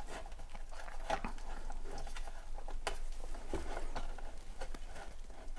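Scattered light clicks and taps of a network switch's housing and parts being handled as it is taken back apart.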